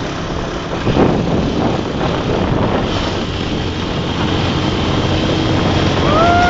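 Motor tricycle running along a road: a steady engine drone mixed with rushing wind and road noise. A voice starts a long, held call near the end.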